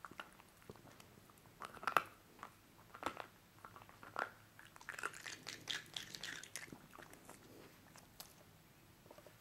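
Welsh Corgi chewing and crunching food in irregular bites, densest a little past the middle.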